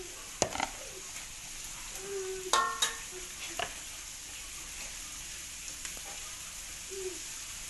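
Oil sizzling steadily in a frying pan, with a few sharp clicks and knocks, the loudest a third of the way in.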